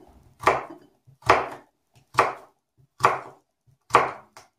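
Kitchen knife slicing through a peeled raw potato on a cutting board, five even cuts about one a second, each ending in a knock of the blade on the board, with a small extra tap near the end.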